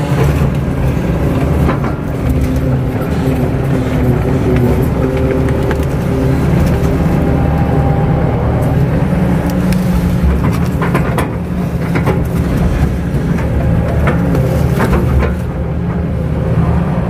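Kato crawler excavator's diesel engine running steadily under working load, with scattered knocks from the machine working.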